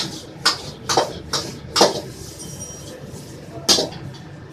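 Metal ladle clanking against a wok during stir-frying: five sharp strikes about half a second apart, then one more near the end, over the steady rush of a high-flame gas wok burner.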